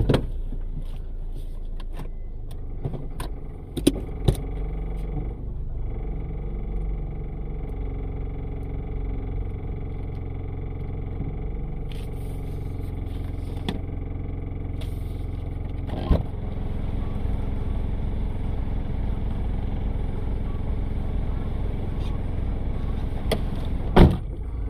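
Car engine idling steadily, heard from inside the cabin, with a few sharp knocks or clicks scattered through, the loudest near the end.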